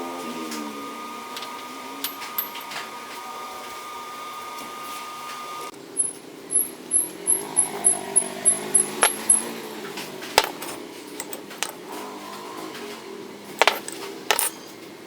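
A steady whine that cuts off, then about a dozen quick, light metallic clinks with a high ring over a few seconds, then a few scattered knocks: steel bar being handled and tapped.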